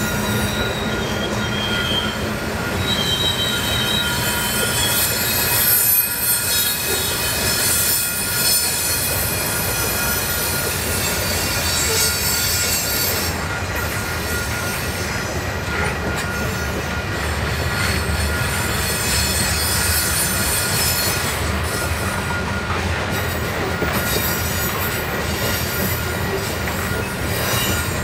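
Canadian Pacific freight train rolling past, its wheels squealing in thin high tones over the steady rumble and rattle of the cars.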